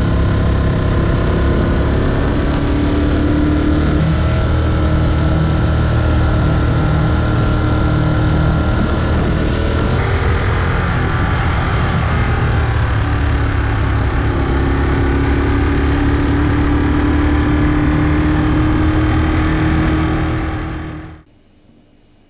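Ducati Monster 821 with an Akrapovic exhaust: its 821 cc L-twin engine runs while the bike is ridden, with wind noise over the microphone. The engine note drops for a few seconds about halfway through, then slowly climbs again. It cuts off abruptly about a second before the end, leaving faint room hiss.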